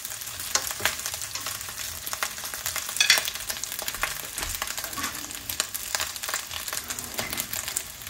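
Fried rice with shredded chicken and Chinese sausage sizzling steadily in a skillet, with scattered small clicks and a short sharper clink about three seconds in.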